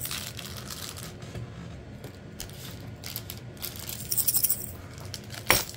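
Tiny nail rhinestones rattling inside a small clear jar as it is shaken, in several bursts, loudest a little past the middle. A single sharp click near the end.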